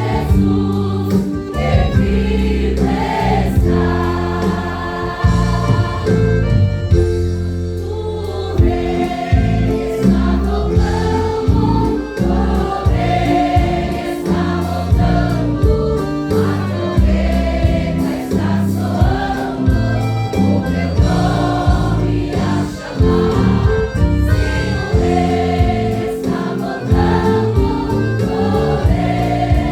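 Choir singing a Pentecostal praise medley over band accompaniment with a steady beat.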